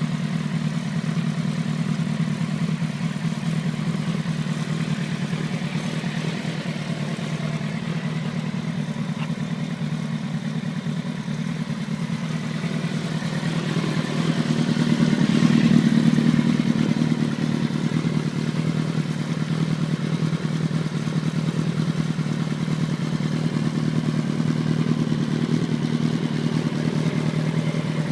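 Motorcycle engine running steadily, growing louder for a few seconds around the middle before settling back.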